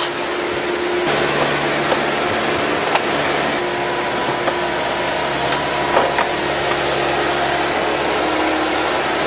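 Forestry harvester running steadily, with a few sharp knocks.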